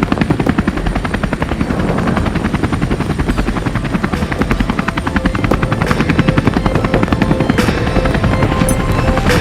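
Bell 206 helicopter in flight, its two-blade main rotor chopping in a rapid, steady pulse over the engine's rumble.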